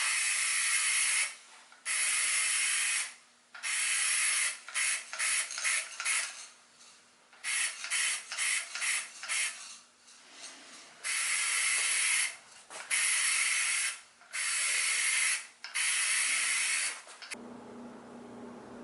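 Lacquer finish being sprayed on in hissing bursts: longer passes of about a second each, with runs of quick short spurts between them.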